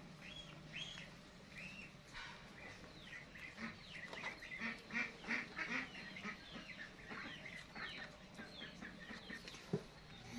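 A run of short high-pitched animal calls: a few arching chirps at first, then a busy stretch of many quick calls through the middle that thins out toward the end.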